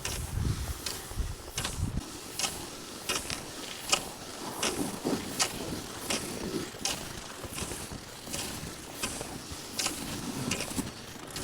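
Skis on snow in a steady striding rhythm: short swishing strokes, about one every three-quarters of a second. Wind rumbles on the microphone for the first two seconds.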